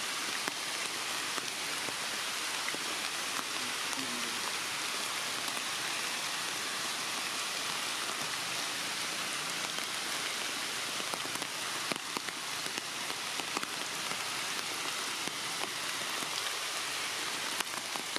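Steady rain falling, an even hiss with scattered sharper ticks of drops hitting.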